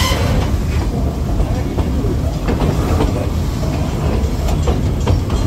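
Ride in an open-sided carriage of a slow tourist train: a steady low rumble of the train running along the track, with a few irregular clicks of the wheels.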